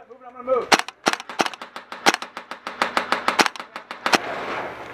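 Airsoft guns firing an uneven run of quick, sharp shots, several a second, stopping about four seconds in.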